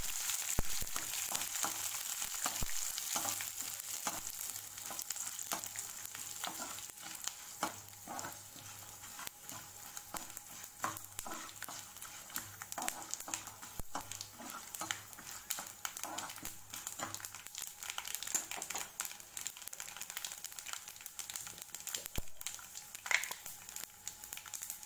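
A tempering of peanuts, lentils, curry leaves, green chillies, cumin and mustard seeds sizzling in hot oil in a kadai, with scattered crackles. A spatula stirs and scrapes through it. The sizzle is loudest in the first several seconds, then settles quieter.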